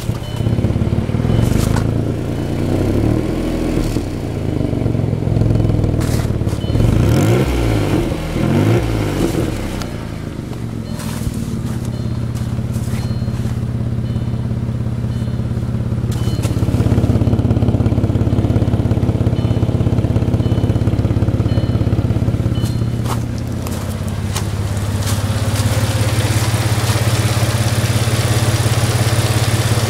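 2001 Audi A4 2.8L V6 engine running with an unexplained uneven, Harley-like sound. It revs up and down several times in the first ten seconds, then holds steadier engine speeds.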